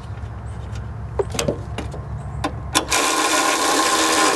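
Cordless electric ratchet spinning a 10 mm nut down onto its stud, its motor running steadily for about a second and a half from about three seconds in. A few light clicks come before it.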